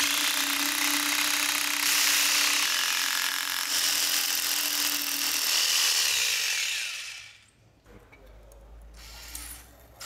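Power drill running under load for about seven seconds, then winding down and stopping.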